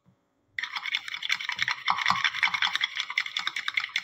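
Metal fork rapidly beating egg whites in a plastic bowl: quick, continuous scratchy clicks of the tines against the bowl, starting about half a second in.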